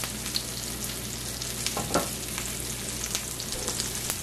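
Chicken patties frying in shallow grease in a griddle pan, a steady sizzle with scattered crackling pops. A brief louder sound about two seconds in.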